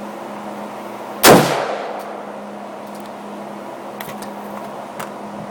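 A single shot from an AR-15 rifle about a second in, sharp and loud with a short ringing tail, followed by a few faint clicks.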